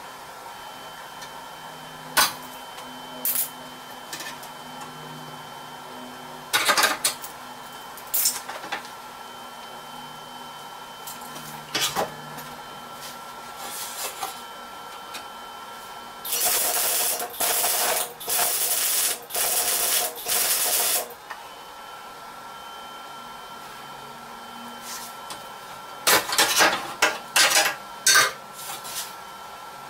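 Welding on the steel radiator core support: several crackling, hissing welds of about a second each in the middle, then a run of shorter tack welds near the end. Before them come a few sharp metal clicks and clanks as locking-pliers clamps are handled.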